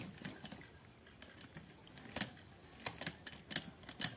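Irregular wet clicks and splats of cow dung being stirred with water by hand and packed over an irrigation pump's pipe joint to seal it against air leaks.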